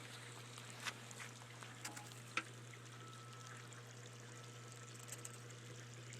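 Faint flow of water from a submersible sump pump's discharge as it pumps out a septic line, over a steady low hum. A few light ticks are heard in the first half.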